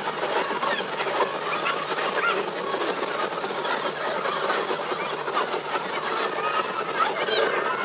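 Hoola Loop roller coaster cars running along the steel track with a rapid mechanical rattle and clatter, mixed with short squeaks.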